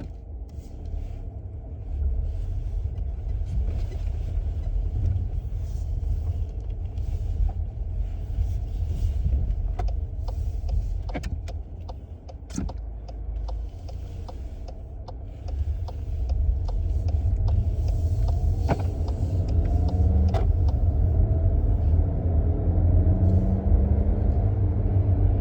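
A car is driven, heard from inside the cabin: a steady low road and drivetrain rumble. In the second half a pitched buzz rises and falls in pitch. This is the buzzing the owner hears when the car decelerates.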